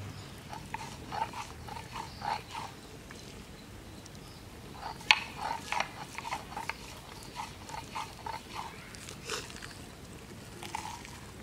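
Raw carp being handled and cut on a bonti blade: irregular short wet squelches and clicks, with one sharp click about five seconds in.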